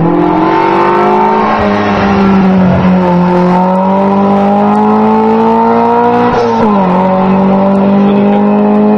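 Race car engine pulling hard up the hill at full throttle, its note climbing steadily as it accelerates. It drops sharply at an upshift about six and a half seconds in, then climbs again.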